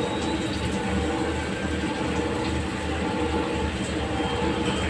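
Steady running noise of a commercial gas wok range, with an uneven low rumble and a few faint steady hum tones.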